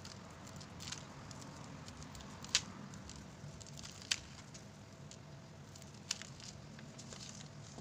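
Small scissors snipping through dry straw: a few short, crisp snips, the clearest three about one and a half to two seconds apart, with faint rustling of the straw between them.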